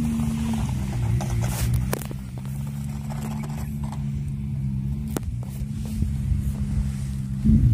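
An engine running steadily: a low, even hum that shifts slightly in pitch about a second in and rises and falls near the end. A few short clicks sound over it.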